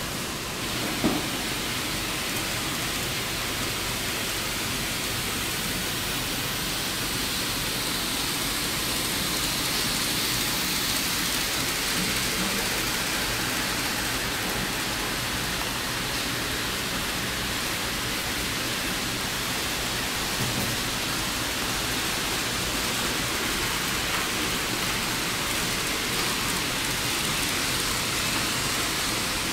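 Steady rain-like hiss of several N-gauge model trains running on the layout's tracks, wheels and small motors together, with a single click about a second in.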